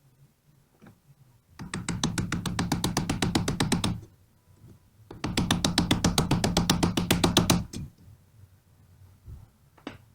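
Pneumatic impact wrench hammering on the alternator's pulley nut in two bursts of about two and a half seconds each, a rapid even rattle of blows over the air motor's hum.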